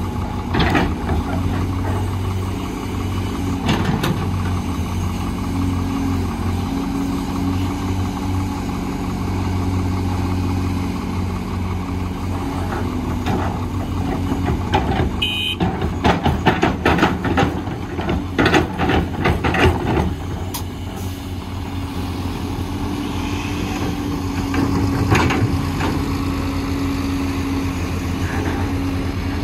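Doosan DX300 excavator's diesel engine running steadily under hydraulic load, its pitch rising and falling as the arm works. Midway through, a run of clattering knocks as soil and rocks drop into the dump truck's steel bed.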